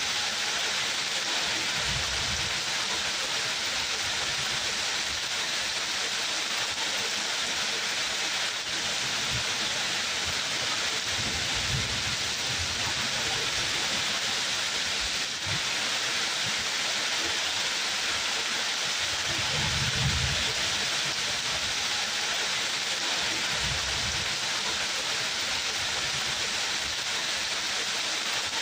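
Steady, heavy rainfall, an even hiss of rain on surfaces, with a few brief low rumbles at intervals.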